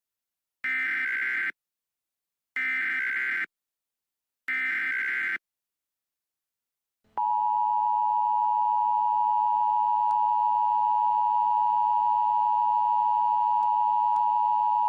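Emergency Alert System tornado warning: three short bursts of SAME header data, each about a second long and a second apart. After a pause of about two seconds, the steady two-tone EAS attention signal starts and holds for about eight seconds.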